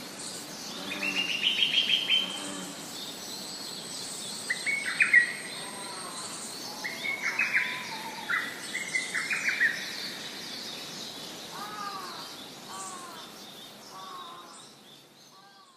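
Female lesser cuckoo giving its rapid bubbling 'pipipipi' call: four bursts of quick, high notes in the first ten seconds. Softer, lower arched calls from another bird follow near the end.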